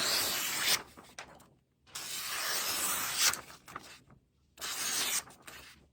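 A freshly sharpened knife blade slicing through paper in three strokes, each a dry hissing rustle, the middle one the longest.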